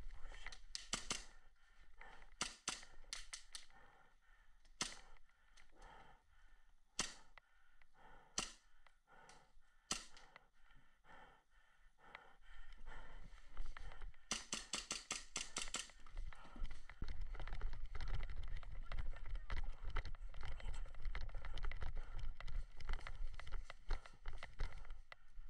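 Airsoft guns firing: sharp single shots and short groups of shots, then a rapid burst of about ten shots around the middle. A steady low rumble takes over for the second half.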